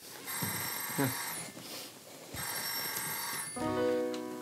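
Telephone bell ringing in bursts of about a second, twice, with short gaps between the rings. A steady held musical tone comes in near the end.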